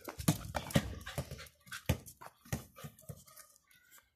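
Pomeranian puppy playing with a ball on stone paving: scattered light clicks and taps, with a few faint short dog vocal sounds about halfway through.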